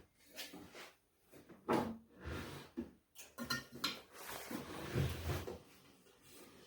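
A string of clunks and knocks with a longer rubbing, scraping stretch past the middle, from a wooden flip-top tool cart and its mounted tools being handled.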